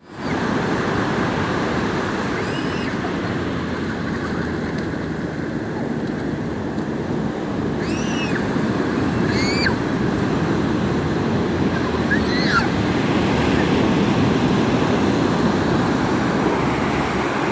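Ocean surf breaking and washing up the beach as a steady rush of noise, with four short high-pitched cries from children playing in the waves.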